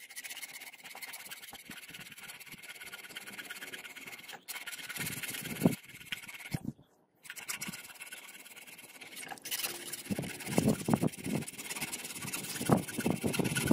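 Hand file rasping back and forth across a brass piece clamped in a vise, in repeated strokes with two brief pauses, about four and seven seconds in.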